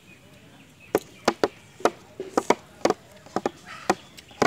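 Green mango being chopped with a blade: a run of sharp, irregular chops, about three a second, starting about a second in.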